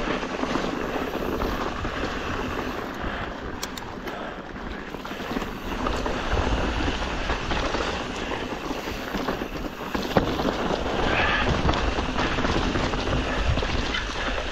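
Wind buffeting the microphone of a rider's camera on a mountain bike, over the rumble of tyres rolling on a dirt trail, with an occasional sharp knock from the bike about ten seconds in.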